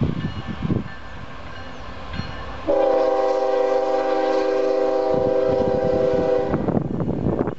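Union Pacific freight locomotive's air horn sounding one long, steady chord of about four seconds, starting nearly three seconds in and cutting off sharply, over the low rumble of the approaching train.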